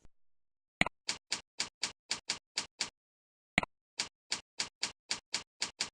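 Computer keyboard keystrokes in two runs of about eight evenly paced clicks, roughly four a second, with a pause between them and a single click opening each run: a password being typed and then typed again to confirm it.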